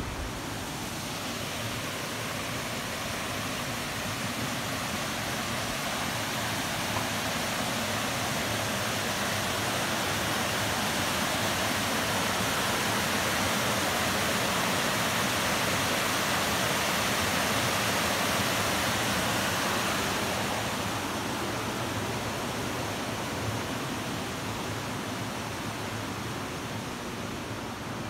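A small waterfall pouring over a rock ledge into a pool makes a steady rushing of falling water. It grows louder over the first half, then fades over the last third.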